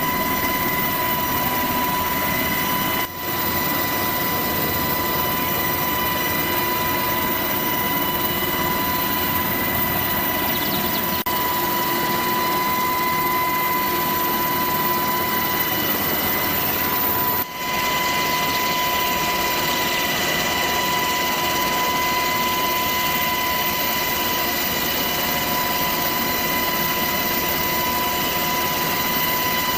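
Helicopter running steadily: a constant noise with a steady high tone through it. The sound drops out briefly twice.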